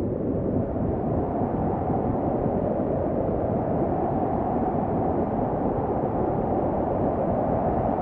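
Snowstorm ambience: wind blowing in a steady, low, dull rush, with no gusts standing out.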